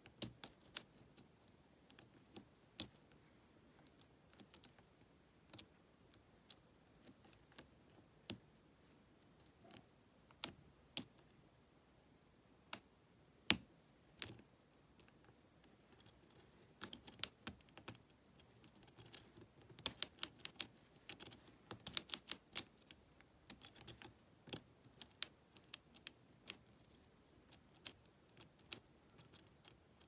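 Small metallic clicks and ticks of a lock pick probing and lifting the pin tumblers of a brass Lockwood 120N padlock under a tension wrench. The clicks are scattered at first and come in a thicker run past the middle.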